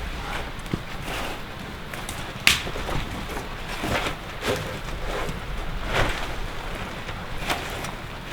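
Irregular knocks and scrapes of wooden roof poles being shifted and pushed up on a log fort, with the sharpest knock about two and a half seconds in, over a steady background hiss.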